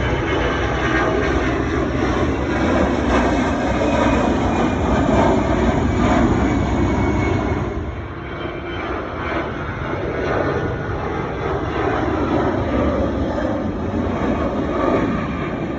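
Jet airliner taking off, its engines running at takeoff power: a loud, steady engine noise that eases slightly about halfway through.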